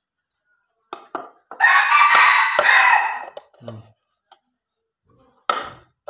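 A rooster crows once, a call of under two seconds starting about a second and a half in, preceded by a couple of light clicks.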